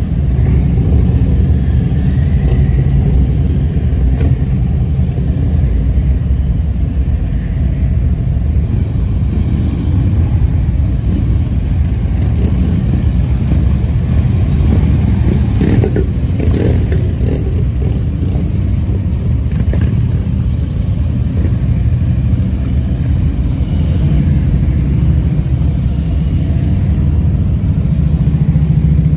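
Many police motorcycles riding slowly past in a column, their engines running with a steady low drone. A few sharp clicks come through around the middle.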